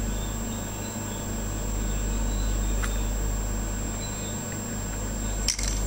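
Steady low background hum with a thin high-pitched whine over it, and a single light tap near the end.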